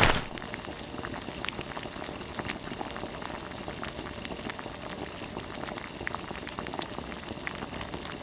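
Volcanic eruption: a short burst at the very start, then a steady crackling hiss with scattered sharp pops, cutting off abruptly at the end.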